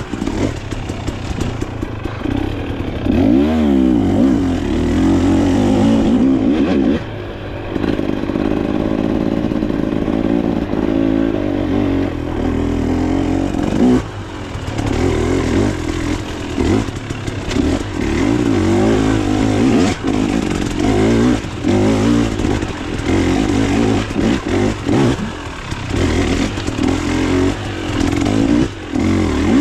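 Off-road dirt bike engine being ridden hard, its revs rising and falling repeatedly as the throttle is opened and closed, with brief drops between pulls.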